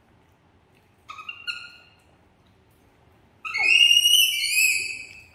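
Baby macaque giving high-pitched squealing calls: a short pair about a second in, then a louder string of squeals stepping up and down in pitch near the end.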